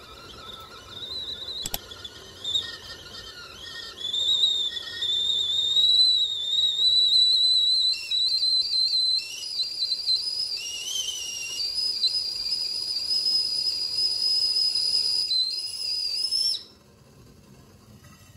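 A high whistle: one wavering tone that slowly climbs in pitch, then stops abruptly near the end.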